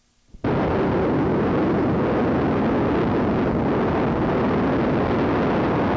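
Steady, loud rushing noise of a moving vehicle, road and wind noise on the microphone, that cuts in abruptly about half a second in.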